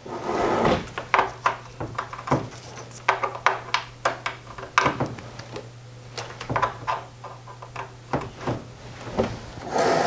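Handling noises: a string of sharp clicks and knocks as a cable is plugged into a computer tower and a plastic device is shifted on a desk, over a steady low hum.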